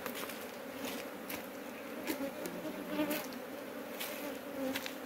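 Honeybees buzzing in numbers around an opened hive just disturbed by lifting off its honey super: a steady hum, with single bees passing close and wavering in pitch, and a few light ticks.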